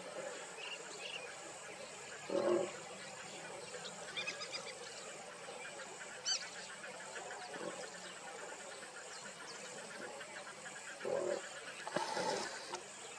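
Jungle wildlife: a steady high drone with scattered short chirps and a fast trill. The loudest sounds are a few brief, low animal calls: one about two and a half seconds in and two near the end.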